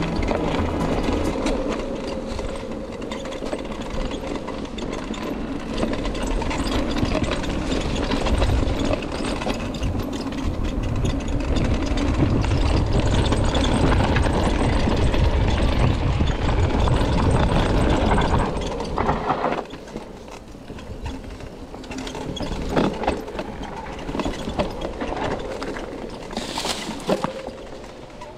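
Wind buffeting the microphone and bike tyres rolling over the trail during an e-bike ride. The noise is loud and rough, then drops off about two-thirds of the way in to a quieter rolling sound with a few sharp knocks.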